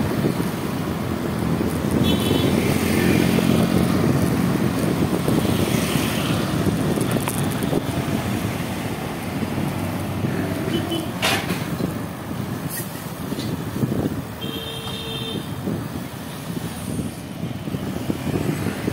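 Road traffic noise: vehicle engines and tyres running continuously, with two short high-pitched beeps, one about two seconds in and one about three-quarters of the way through.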